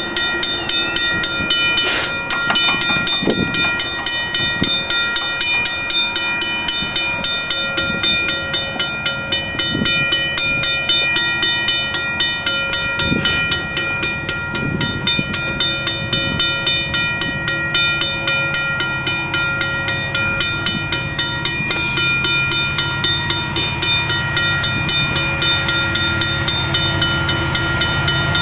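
Safetran crossing bell at a railroad grade crossing ringing steadily in quick, even strokes. Under it, a distant train's low rumble grows stronger toward the end.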